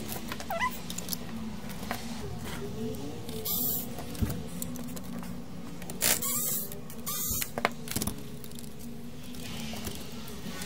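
Plastic chassis of an old CD player being handled and turned over: scattered clicks and knocks and a few short scraping rushes of noise, over a steady low hum.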